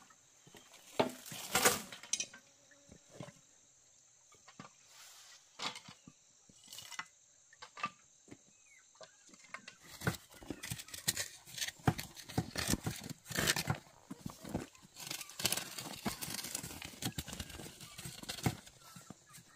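Hard knocks and clatter of handwork: scattered single knocks at first, then a quick irregular run of knocks from about halfway through. Insects chirr steadily in the background.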